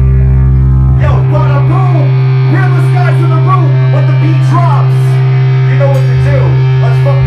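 A rock band's amplified guitar and bass hold one steady low droning note through the PA, with a man's voice talking or shouting into the microphone over it from about a second in.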